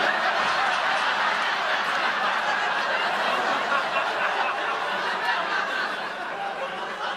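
Sitcom studio audience laughing, a dense steady wash of laughter that slowly dies down.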